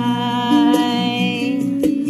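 A song with a voice holding one long note for about a second and a half over acoustic guitar.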